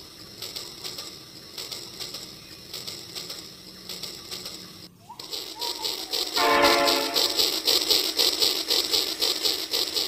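Toy battery-powered trains running on plastic track with fast steady clicking. About five seconds in a louder toy train takes over: it gives a short electronic horn hoot, then a fast pulsing chug from its sound unit.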